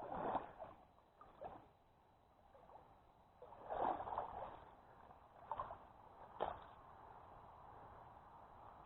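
Water sloshing and splashing in a few short bursts, like legs wading through a shallow creek, then a faint steady wash of water.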